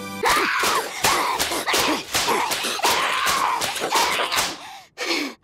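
Anime-style paper fan (harisen) smacks, about four a second, under a high voice crying out; the slaps stop near the end.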